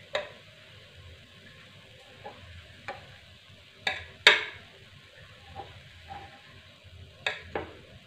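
A metal utensil clicking and scraping against a non-stick cake mold as small cakes are prised out, a few sharp clicks scattered through with the loudest near the middle, over a faint steady sizzle from the hot pan.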